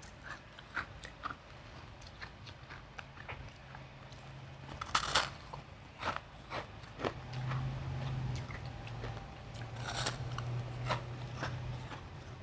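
Close-miked biting and chewing of refrozen crushed ice: scattered crisp crunches, with loud bites about five and ten seconds in.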